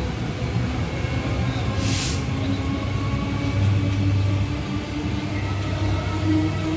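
Suburban electric multiple-unit train passing on the adjacent track: a steady rumble and clatter of wheels with a faint motor hum. A short hiss comes about two seconds in.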